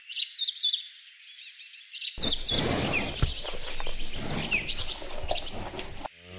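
Small birds chirping in many short, high, quick calls; about two seconds in, a steady outdoor background hiss comes up beneath them.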